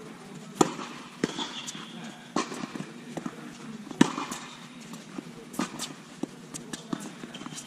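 Tennis balls being struck by racquets and bouncing on a hard court during a rally: a string of sharp pops spaced one to two seconds apart, the loudest about four seconds in. There is a short high squeak about a second and a half in.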